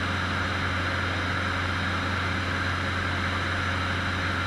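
Cessna 150's four-cylinder Continental O-200 engine and propeller running steadily in flight, heard inside the cabin as a constant low drone with a hiss of air over it.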